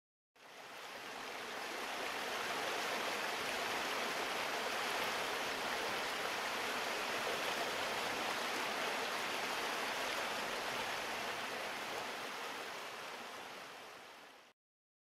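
Mountain stream rushing and splashing over rocks in small cascades, a steady water noise that fades in at the start and fades out near the end.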